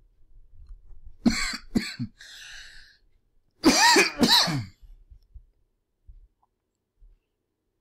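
A person coughing: three quick coughs, a short breath, then a louder two-part cough and throat clear about four seconds in.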